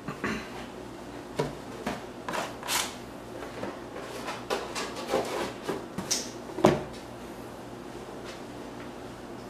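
Scattered light knocks and scrapes of cardboard packaging being handled and set down on a tabletop cutting mat. The loudest knock comes near the end, then the handling stops.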